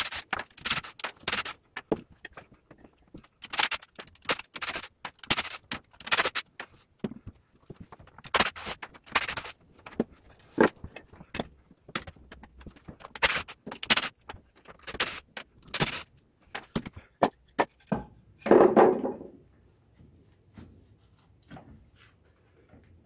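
Wooden brick form being dismantled around cast refractory cement bricks: a string of short, irregular scrapes and knocks of wood. About three-quarters of the way through comes one louder, longer scrape.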